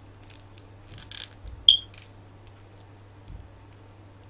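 Small clicks and light handling of a plastic action figure as its joints are moved, with one sharp click about a second and a half in, over a faint steady low hum.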